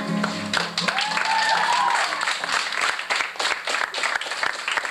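Acoustic guitar's last strummed chord ringing out briefly, then a class of students clapping, with one voice calling out over the applause about a second in.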